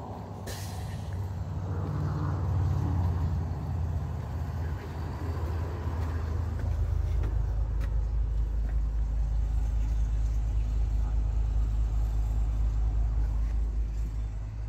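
Cummins diesel engine of a 2019 school bus running steadily at raised idle during a forced DPF regeneration, a deep, even rumble. It grows louder and deeper about six to seven seconds in, heard from inside the bus cab.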